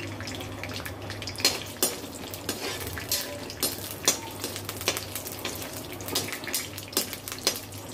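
Peanuts roasting in hot oil in a metal kadai, stirred with a metal slotted ladle that scrapes and clinks against the pan in irregular strokes, over a light frying sizzle.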